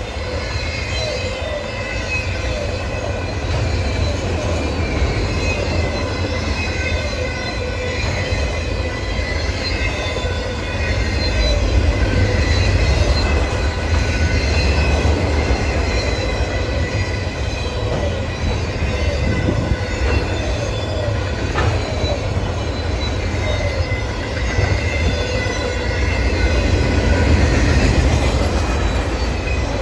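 Freight train cars rolling past in a steady rumble, the wheels squealing on the rail with a wavering, high-pitched squeal.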